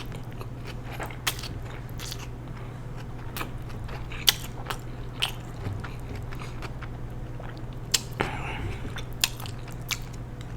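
Close-miked chewing of a mouthful of food, with many short, sharp mouth clicks scattered throughout over a steady low hum.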